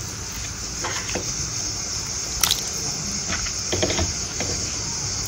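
Water bubbling at the boil in an aluminium pot with pork pieces in it: a steady hiss with a few small pops and clicks.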